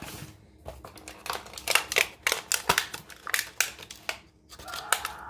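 Berries dropped one at a time into a container for a smoothie: a run of irregular sharp clicks and taps, coming quickest in the middle.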